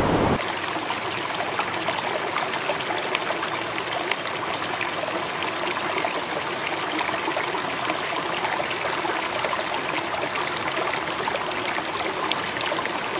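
Shallow mountain trout river flowing steadily over rocks, a continuous babble of water with many small splashes.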